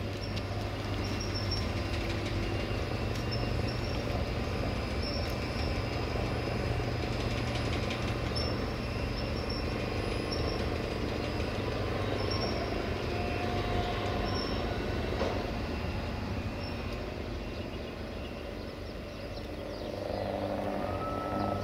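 A train moving along the track: a steady low hum under rolling noise, with short high-pitched wheel squeals every second or two. It grows louder near the end.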